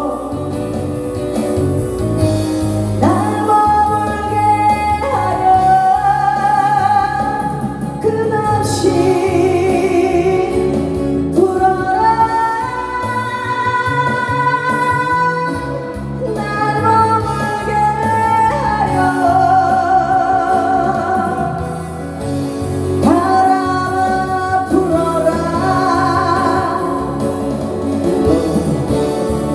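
Music: a woman singing a slow song with long held notes over backing accompaniment.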